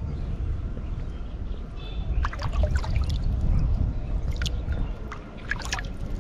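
Water splashing as a large catfish breaks the surface at a baited hook, in short bursts about two seconds in, again around four and a half seconds and near the end, over a steady low rumble.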